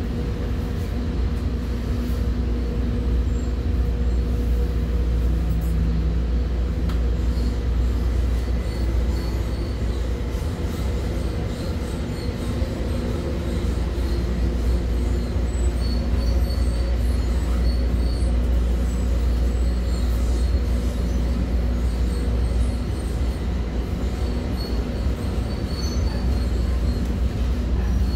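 Commuter train running along the track: a steady low rumble of wheels on rails, with a faint steady hum over it.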